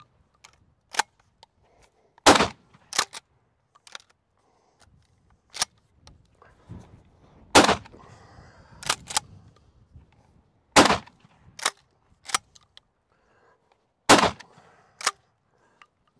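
Rock Island All Gen 12 12-gauge pump shotgun firing four 3-inch #4 shot shells, roughly three seconds apart. Each shot is followed by the clack-clack of the pump action being racked. These are the last shells of the box, which fed and cycled without a hitch.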